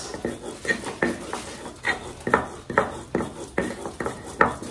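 A utensil clinking repeatedly against a metal bowl while food is mixed in it: sharp ringing clinks, about two or three a second, somewhat irregular.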